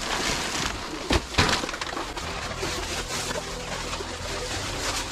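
Household rubbish and clutter being handled and shifted during a house clearance: rustling and clattering, with two sharp knocks about a second in. A steady low hum runs underneath from about two seconds in.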